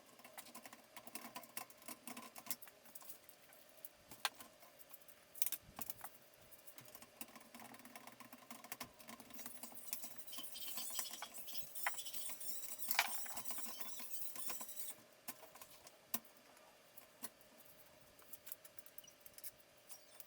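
Irregular small clicks, taps and rattles of computer hardware being handled during PC assembly, with a rustling stretch in the middle and one sharper knock in it. A faint steady hum runs underneath.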